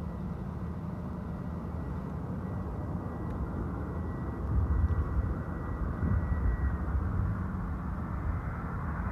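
Boeing 747's jet engines heard from far off on landing approach: a low rumble that swells and dips, with a faint thin whine that fades out about seven seconds in.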